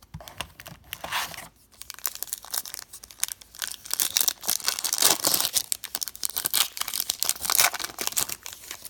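Wrapper of a hockey trading-card pack being torn open and crinkled by hand: a run of rapid crackling and rustling that grows busier and louder from about four seconds in.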